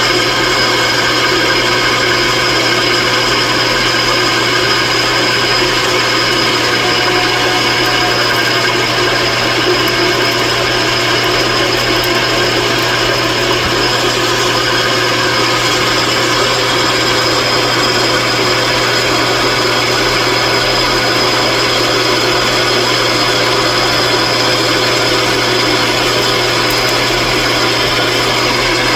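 A shop machine's electric motor running steadily at constant speed, a loud hum with several steady whining tones that do not change.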